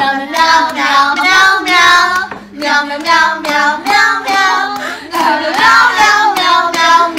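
A voice singing a melody, with some held, wavering notes.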